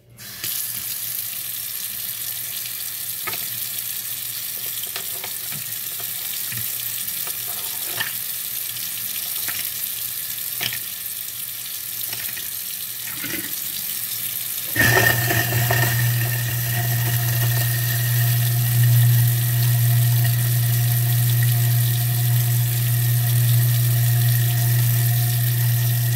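Tap water running into a kitchen sink with a few sharp clinks, then about 15 seconds in an InSinkErator Evolution XP 3/4 hp garbage disposal switches on and runs with a steady low hum while grinding water and ice.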